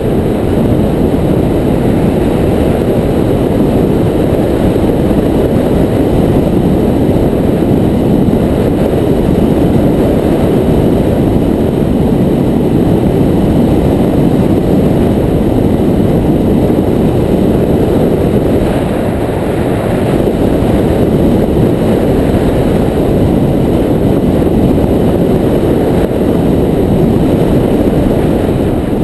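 Wind rushing over the microphone of a bicycle-mounted camera during a fast downhill descent: a loud, steady low rumble.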